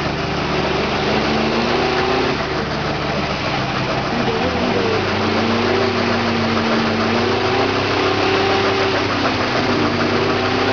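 Lifted mud truck's big engine held at high revs through a burnout, its pitch rising and falling slowly, over a steady rush of spinning tires.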